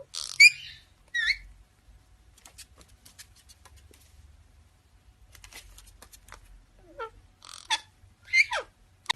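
A parrot making short, squeaky calls that slide in pitch: a few near the start and a cluster near the end. In between come faint rapid clicks.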